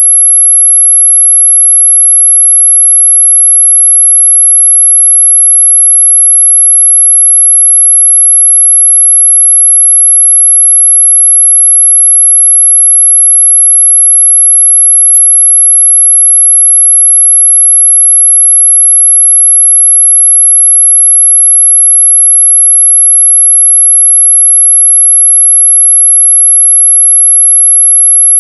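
Electronically generated pure tone, very high-pitched and loud, held perfectly steady as an anti-mosquito repellent sound. A brief click about fifteen seconds in.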